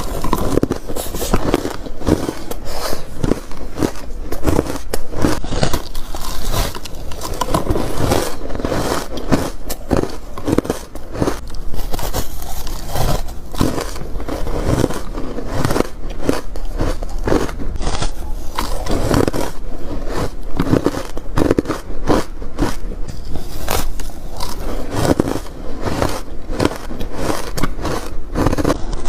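Ice being bitten and crunched close to the microphone: loud, dense crackling crunches, one bite after another.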